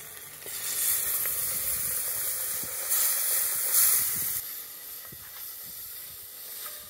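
Water poured into a hot cast-iron pot of roasting tomato paste, meat and onions, hissing loudly into steam as the pot is deglazed. The hiss starts about half a second in and dies down after about four seconds to a quieter sizzle.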